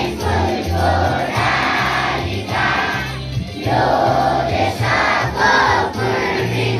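A large group of schoolchildren singing together in unison.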